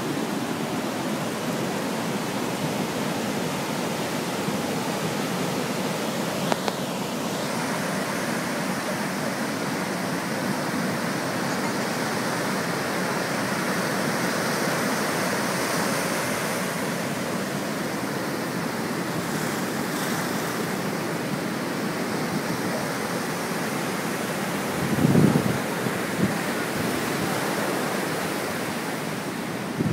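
Ocean surf washing up the beach, a steady rush of breaking waves and foaming water. A brief low thump comes near the end.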